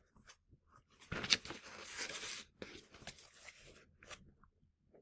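Paper rustling as a picture book's page is turned, starting suddenly about a second in and lasting about a second and a half, followed by faint handling noises.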